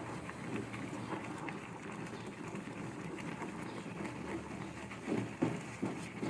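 A spoon stirring maize-flour porridge as it thickens in a pot, with faint scrapes and taps and a few slightly louder knocks near the end, over a steady low rumble.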